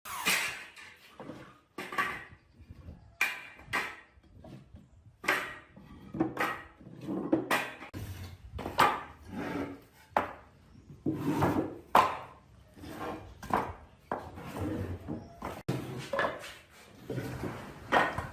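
Wooden knocks and clunks at irregular intervals, about one or two a second, each with a short ring-out, as pieces of wood are handled and knocked together.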